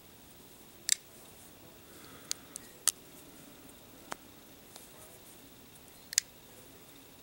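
A custom folding knife's blade being opened and closed by hand, giving a series of sharp metallic clicks as it snaps into place, the loudest about a second in, about three seconds in and near the end.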